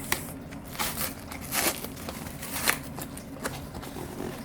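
Plant packaging being torn open and unwrapped by hand: irregular crinkling and rustling, in scattered short bursts.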